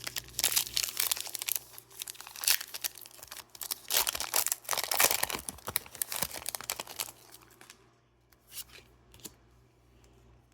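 Foil wrapper of a Pokémon card booster pack being torn open and crinkled, with dense crackling for about seven seconds, then a few soft rustles near the end.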